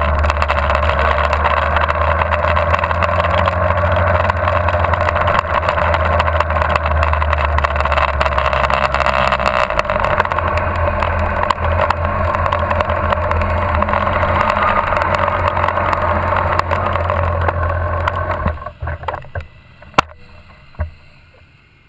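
Motorcycle engine running at a steady pace, with wind noise rushing over an on-bike camera mic. About eighteen seconds in the sound drops away sharply as the bike comes to a stop, leaving a few light clicks.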